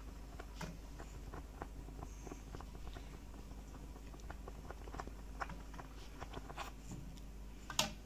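Espresso machine steam wand on a low setting heating milk tea in a stainless steel jug: a steady, irregular crackling and bubbling of steam in the liquid, with one sharper click near the end.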